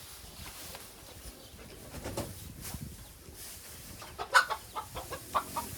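Chickens clucking: a string of short, sharp clucks starting about four seconds in, over a low rustling.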